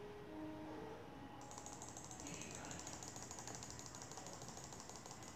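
Computer mouse button clicked rapidly and steadily, about six clicks a second, in a clicks-per-second speed test. The clicking starts about a second and a half in.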